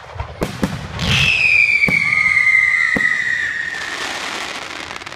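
Whistling consumer fireworks: a few sharp bangs, then a loud whistle starting about a second in that slides slowly down in pitch for nearly three seconds, with two cracks over it. The whistle gives way to a hiss near the end as the stars burst.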